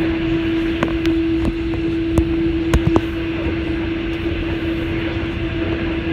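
Interior noise of a moving 25K passenger coach: a steady rumble of the running gear with a constant hum through it, and a few sharp clicks in the first three seconds.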